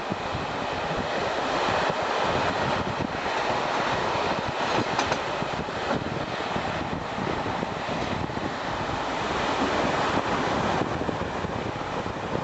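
Passenger train running at speed, heard from a carriage window: a steady rush of wheel-on-rail noise and passing air, with a few faint clicks from the wheels over the track.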